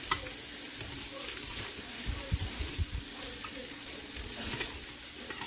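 Fish pieces sizzling softly in a hot air fryer basket as they are turned over with metal tongs, with a sharp tong click just after the start and a few soft bumps in the middle.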